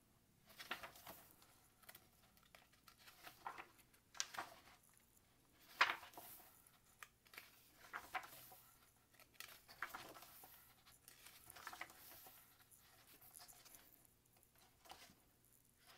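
Pages of a glossy photo book being turned by hand: faint, scattered paper swishes and rustles every second or two, the sharpest about six seconds in.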